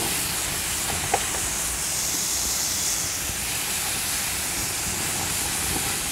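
Beef slices sizzling on a hot grill pan as more raw pieces are laid on, a steady hiss.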